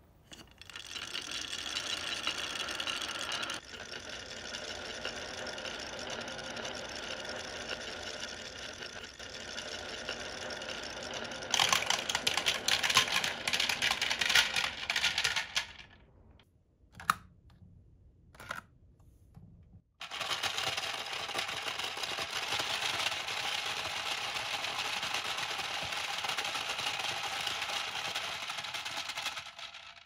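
Many marbles rolling down the wavy grooves of a wooden HABA slope, then a louder clatter of dense clicks as they pour into two toy mini washing machines. After a short lull with a few stray clicks, about twenty seconds in, the mini washing machines' small motors start and run steadily, tumbling the marbles inside.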